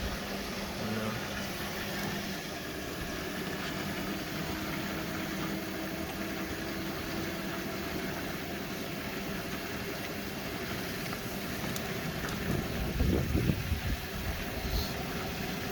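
Hoover Nextra Iconic and Beko WDER washing machines on their final spin: a steady motor hum and drum noise. Louder, irregular low knocking comes near the end.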